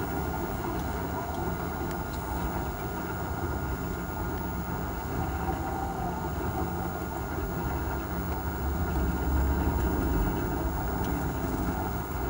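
Tugboat diesel engines running with a steady hum while pushing a tank barge, with a deeper low rumble that swells about nine to ten seconds in.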